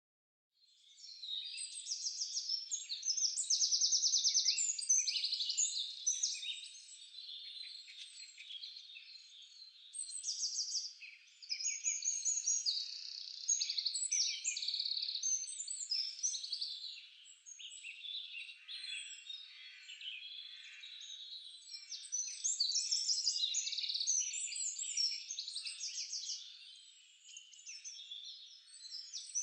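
Many birds chirping and singing together in a nature sound-effect recording, quick overlapping trills and chirps. It starts about half a second in.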